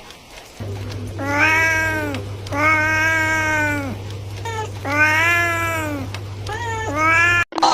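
A cat meowing: a series of long, drawn-out meows with a couple of shorter ones between, the longest lasting about a second and a half. A low steady hum runs underneath from about half a second in, and everything cuts off abruptly near the end.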